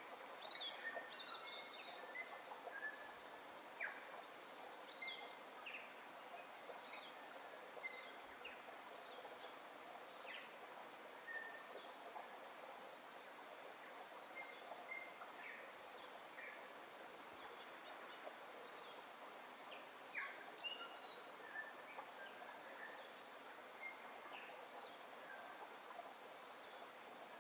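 Birds calling at scattered intervals, short chirps and whistled notes, over a steady soft hiss.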